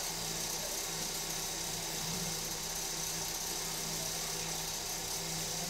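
Steady low mechanical hum with a constant hiss, even throughout, with no distinct knocks or calls.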